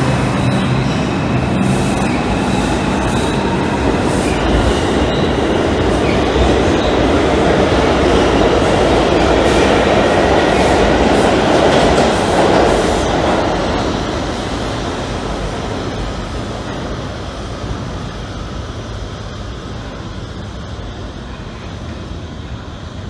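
Bombardier R142 subway train pulling out of an underground station: loud, steady running noise of wheels on rail and motors. Over the last ten seconds it fades as the train moves off into the tunnel.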